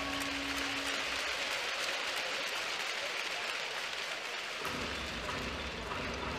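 Arena crowd applauding steadily, a dense even clatter of many hands, with a lower rumble of crowd noise joining near the end.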